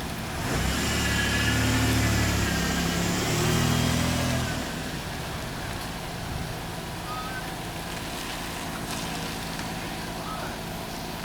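A motor vehicle's engine running, swelling up about half a second in and fading out about four and a half seconds in, followed by a steady low background hum.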